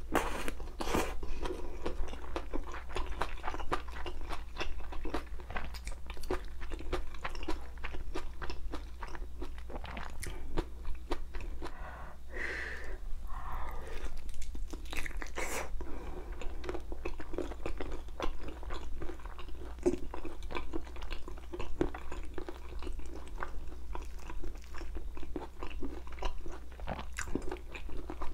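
Close-miked chewing and crunching of spicy bone-in chicken feet: wet mouth sounds with many small, irregular clicks and crackles as the meat and skin are bitten and gnawed off the bones.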